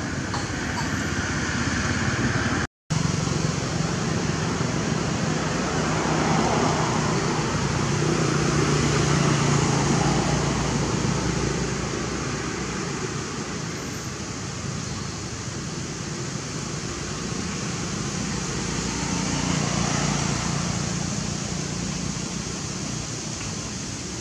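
Steady outdoor background noise with a low hum. It cuts out completely for a moment about three seconds in.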